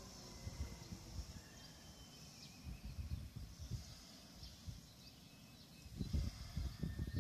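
Wind buffeting the microphone in irregular low rumbling gusts that get much stronger about six seconds in, over a faint outdoor background with thin high calls that fit birds.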